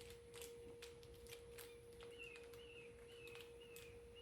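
Near silence, with faint scattered clicks of small parts being handled, and from about halfway a faint high chirp repeated about three times a second.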